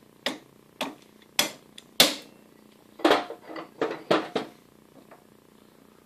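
A string of about ten sharp knocks with short ringing tails, irregularly spaced, the loudest about two seconds in and the last about five seconds in.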